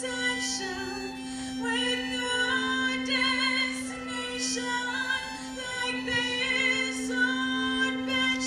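Live female voice singing with vibrato, accompanied by violin and viola. One bowed string holds a steady low note under the melody.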